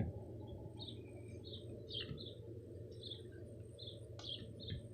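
Small birds chirping outdoors: short, high chirps, about two a second, over a steady low background rumble.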